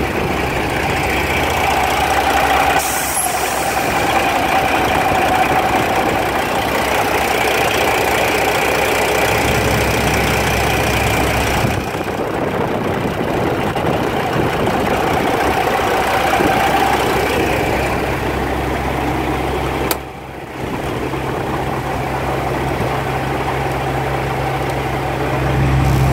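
Freightliner Columbia semi-truck's diesel engine idling steadily, briefly dipping about twenty seconds in.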